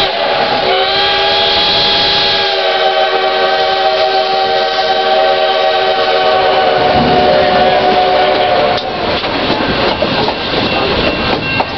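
Chime steam whistle of D&RGW 2-8-2 Mikado No. 480 blowing a long held chord as the train approaches a road grade crossing, cutting off about nine seconds in. After it, the clatter of the narrow-gauge passenger cars over the rails.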